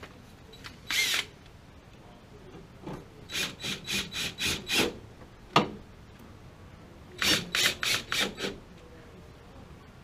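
Cordless drill/driver turning screws at a gas water heater's burner access cover, run in short trigger bursts: one about a second in, a run of quick pulses in the middle, a sharp click, then another run of pulses near the end.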